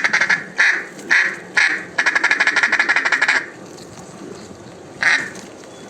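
Mallard-hen quacking blown loud on a duck call: a string of raspy quacks, then a long rapid run of notes about two seconds in, and one more quack near the end.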